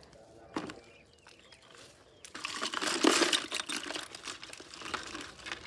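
Crinkling and rustling of netting and plastic as a mesh fish trap is shaken out over a plastic bucket, rising to a loud burst of rustling with many small clicks about two seconds in and easing off after about four seconds.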